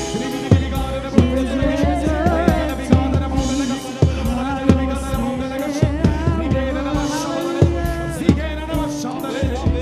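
Worship music: a singing voice with band accompaniment over a steady drum beat and bass.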